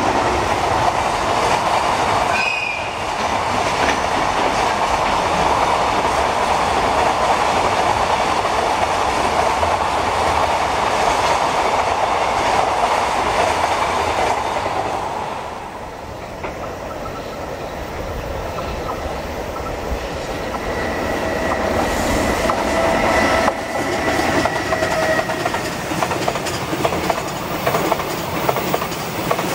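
Container freight wagons of a JR Freight train rolling past with a steady clickety-clack of wheels over the rails. A short AW-2 whistle horn sounds about two seconds in. The rolling dies down around the middle, then a second container train rolls by, growing louder toward the end.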